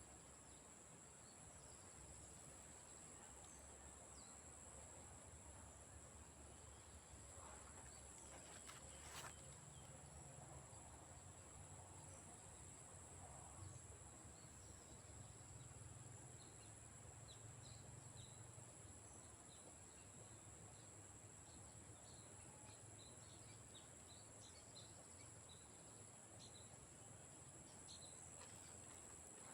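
Swamp ambience: a steady, high-pitched chorus of crickets, with short bird chirps scattered through it and one sharp click about nine seconds in.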